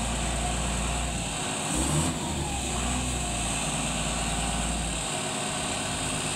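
Heavy truck's diesel engine running with a steady deep rumble as the loaded truck creeps forward. The rumble drops away briefly about a second and a half in, and again about five seconds in.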